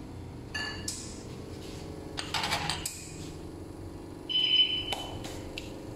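Ceramic coffee cups clinking and knocking as they are set down on the stainless steel drip grate of a Victoria Arduino Eagle One espresso machine: several light clinks, with one louder clink that rings on for half a second about two-thirds of the way through. A steady low hum runs underneath.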